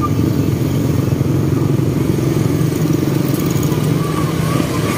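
Motorcycle engine running steadily while riding in traffic among other motorcycles.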